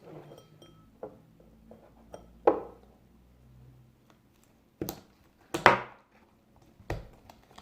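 Five sharp knocks and taps on a hard surface, spaced a second or so apart, the second and fourth loudest, like small objects being handled and set down.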